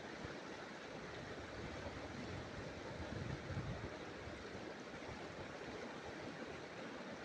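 River current rushing through choppy shallows, a steady wash of water, with a brief low rumble about three seconds in.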